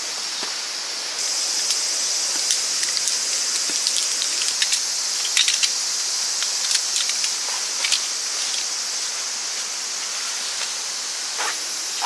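Rainy forest ambience: a steady high hiss of falling rain with many scattered drip ticks, the hiss growing louder about a second in.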